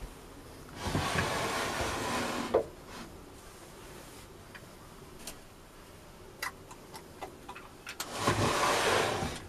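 Wooden cabin drawer scraping along its wooden runners as it is pulled out, stopping with a knock; a few light clicks follow, and near the end it scrapes along its runners again.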